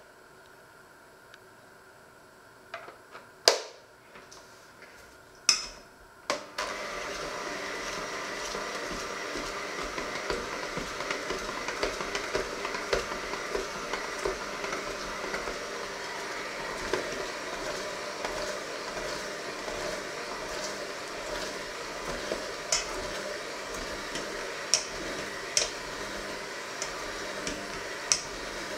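A few sharp clicks as dough hooks are fitted, then about six seconds in a handheld electric mixer starts up and runs steadily with its dough hooks mixing a flour dough in a stainless steel bowl, with light ticks of the hooks against the bowl.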